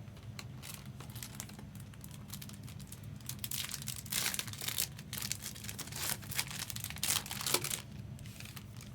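Trading-card pack wrapper being torn open and crinkled by hand, in a run of crinkly bursts through the middle few seconds, over a steady low hum.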